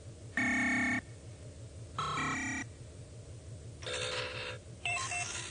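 Synthesised computer-terminal beeps: four short electronic tones, each about half a second and a second or two apart, over a low pulsing hum. They signal the password going through and access being granted.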